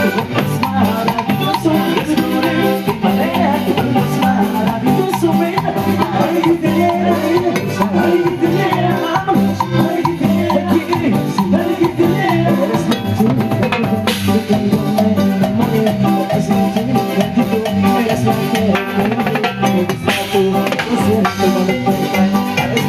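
A live Latin band playing dance music, with a drum kit and hand percussion keeping a steady beat under the melody.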